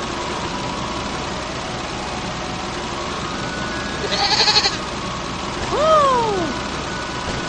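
Cartoon sound effects over a steady background hum: a short, rapid high rattling chirp about four seconds in, then a call whose pitch rises and falls in one arch about a second later.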